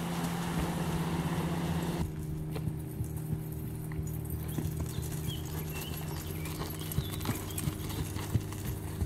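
Hoofbeats of a Missouri Fox Trotter mare gaiting across grass under a rider, a loose string of dull thuds. In the first two seconds a steady rushing, scraping noise from a tarp dragged over the grass behind her cuts off abruptly.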